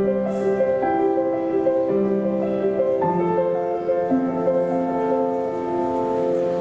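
Slow piano music: a melody over held chords that change every second or so.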